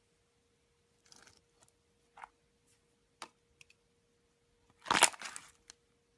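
Slime being squeezed and poked: scattered small clicks and crackles, then a louder crunchy crackle about five seconds in.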